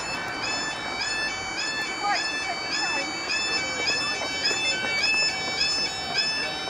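Level crossing barrier alarms in the SPX barrier boxes sounding a steady two-tone warble, the tones stepping back and forth in an even repeating pattern. It is the audible warning that the barriers are lowering for an approaching train.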